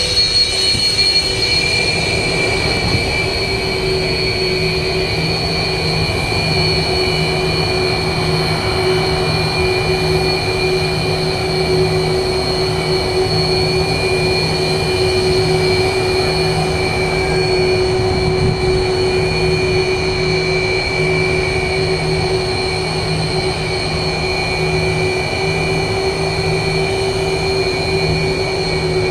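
Twin turbofan engines of a Sukhoi Su-30 fighter running steadily, a high turbine whine of several steady tones over a low rumble, holding at one pitch without spooling up.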